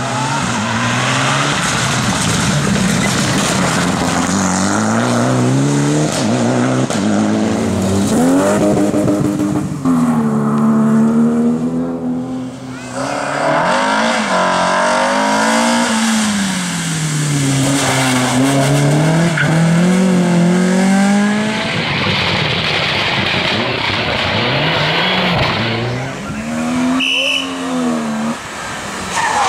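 Rally cars, among them a Mitsubishi Lancer Evolution X and older BMW 3 Series, passing one after another at stage speed. Each engine's pitch climbs and drops repeatedly as the car accelerates, lifts and changes gear. A stretch of hissing noise comes in the last third.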